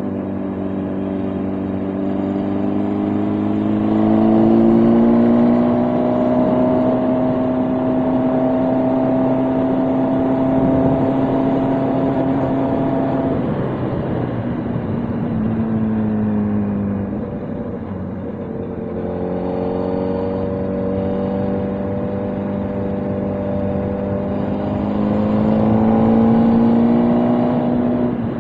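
Motorcycle engine under way. Its pitch rises over the first few seconds and holds steady, eases off and falls around the middle, then climbs again until it drops right at the end, over a steady rushing noise.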